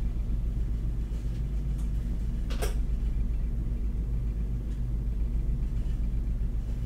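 Glassworking bench burner torch flame running with a steady low rumble, and one sharp click about two and a half seconds in.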